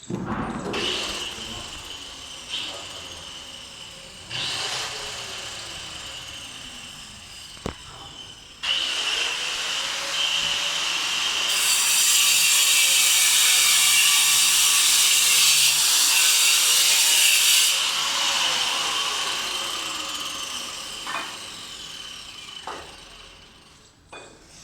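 A power tool cutting, with a steady high whine. It gets louder about eight seconds in, is loudest around the middle, and fades toward the end.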